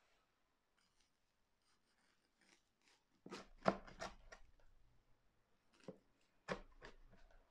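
A large kitchen knife cutting down through a crisp, pan-fried spring onion pancake on a bamboo cutting board. The crust crunches as the blade goes through, in two bouts of short sharp cuts: about three seconds in and again near the end.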